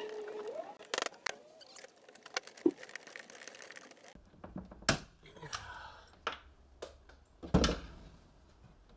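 Workshop handling noises: scattered clicks, taps and knocks of parts and tools being handled, with the loudest knocks at about five seconds and near the end.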